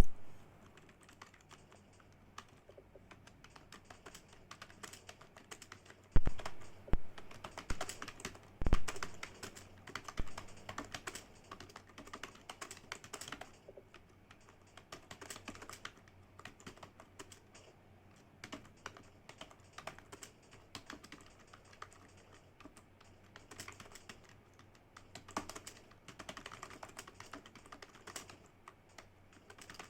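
Typing on a computer keyboard: a steady patter of keystrokes, with a few louder knocks about six and nine seconds in.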